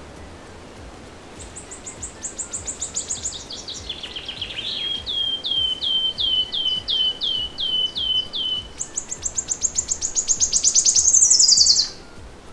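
Nightingale singing one long song phrase. It opens with a quick run of high down-slurred notes, moves to a row of repeated lower whistled notes, and ends in a fast trill that swells to the loudest point and stops abruptly near the end.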